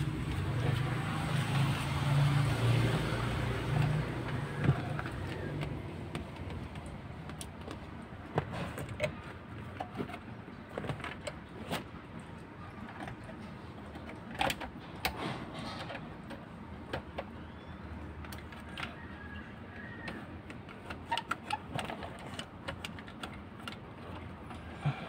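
Scattered light clicks, ticks and rustles of a USB charging cable and plastic console parts being handled and tucked in beside a car's centre armrest. A low vehicle engine hum is heard in the first few seconds and fades out.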